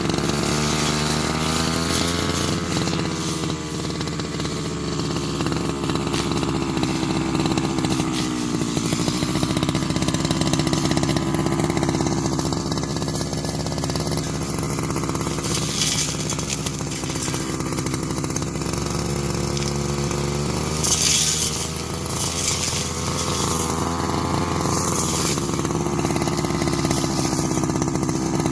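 Grass-cutting machine's engine running throughout, its pitch rising and falling as the throttle and cutting load change. There are two brief hissing bursts, about halfway through and again some five seconds later.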